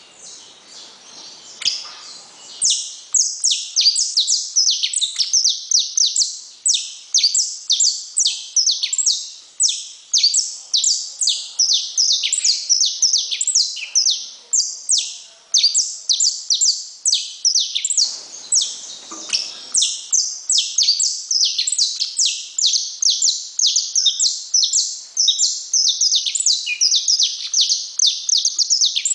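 Saffron finch (canário-da-terra) singing a long, unbroken song of quick, high, falling notes, about two or three a second. It starts softly and turns loud about two seconds in.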